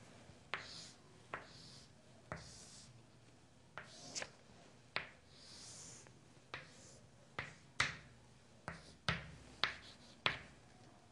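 Chalk on a chalkboard while drawing the lines of a triangle: about a dozen sharp taps as the chalk strikes the board, with softer scratchy strokes in between.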